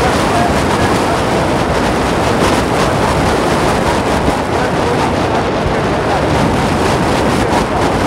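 Hero Splendor Plus single-cylinder motorcycle engine running steadily while riding at road speed, mixed with wind buffeting the microphone.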